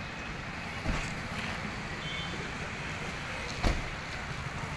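Street ambience: steady traffic noise with wind buffeting the microphone, and two sharp knocks, one about a second in and a louder one later on.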